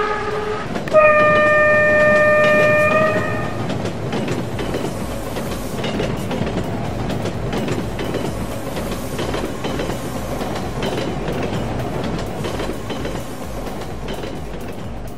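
Dubbed train sound effect: a single steady horn blast of about two and a half seconds, starting a second in, then the rumble and clatter of a train rolling over the rails, slowly fading toward the end.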